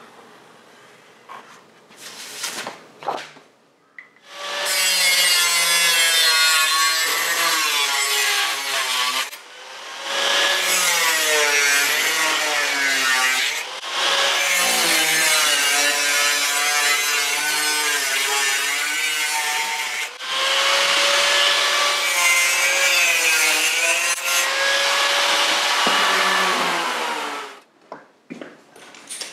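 Angle grinder with a thin cut-off disc cutting a patch out of sheet steel, in three long runs with short breaks between them. Its whine wavers and dips as the disc bites into the metal.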